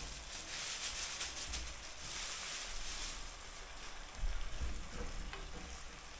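Pork ribs and potatoes sizzling in hot oil in a small pot as they are stir-fried. The sizzle is strong for about three seconds, then dies down, with a few low knocks of the pot or utensil in the second half.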